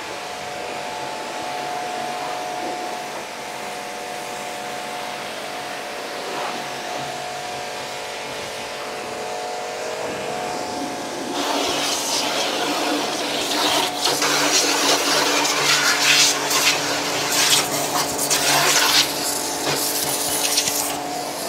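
Hotstar electric pressure washer running: its induction motor and pump hum steadily while the high-pressure jet hisses against a car's bodywork. About halfway through, the spray noise grows much louder and rougher as the jet works along the side and wheel arch.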